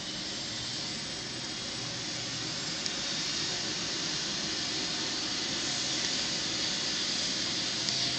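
Turbine helicopter running on the ground with its rotor turning before lift-off: a steady rushing hiss and whine that grows slightly louder.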